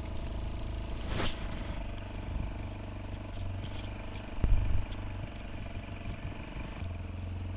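2003 Honda Metropolitan scooter engine idling steadily. A brief scraping swish comes about a second in, and a single thump about four and a half seconds in.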